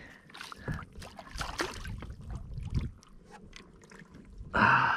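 Water splashing and knocking against a kayak as a small Spanish mackerel is reeled up alongside and lifted out, with scattered small splashes and clicks, then a louder rushing splash about four and a half seconds in.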